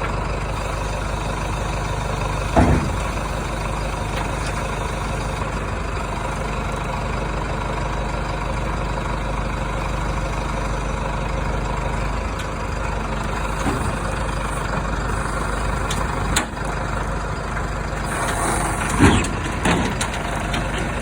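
Diesel engine of a hiab crane lorry running steadily while a scrap vehicle is lifted, with a few clunks: one about two and a half seconds in and a louder pair near the end.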